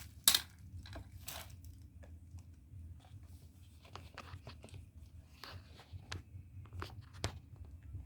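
Packaging being handled and unwrapped: scattered crinkling rustles and light clicks, with one sharp click just after the start, over a low steady hum.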